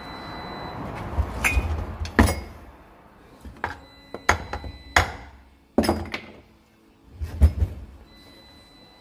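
A series of sharp metal knocks and clanks, about a dozen in irregular clusters, from a hand tool and the aluminium gearbox casing being worked on and moved, with a rising scraping noise at the start.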